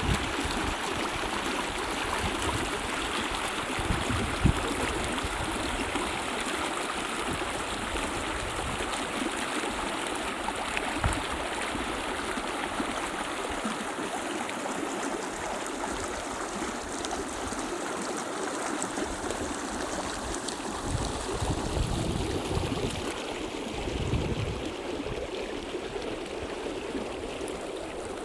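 Deadman Creek, a Sierra Nevada mountain creek, flowing with a steady rush of water, broken now and then by brief low rumbles.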